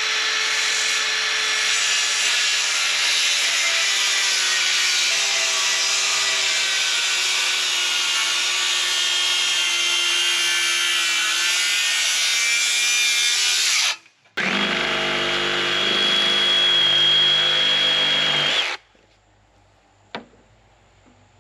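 Electric power saw cutting through the top of a wooden post: one long cut of about fourteen seconds with the motor pitch sagging slightly under load, a brief stop, then a second shorter cut of about four seconds before the saw stops.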